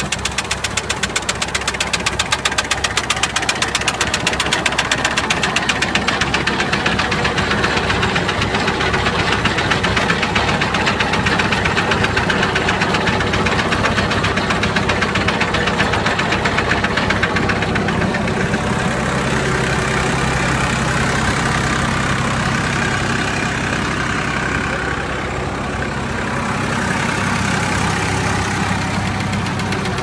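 Tractor engine running steadily under load while pulling a potato digger, with a fast, regular clatter from the machinery.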